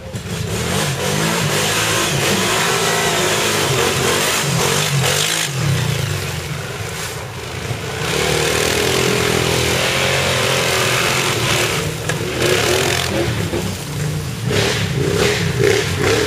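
ATV engine revving up and easing off over and over as the quad pushes through deep mud, with a brief dip in the revs about seven seconds in.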